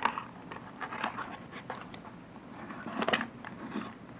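Small handling noises as slime containers are moved about: scattered light clicks and scratches, with a louder cluster of plastic knocks about three seconds in.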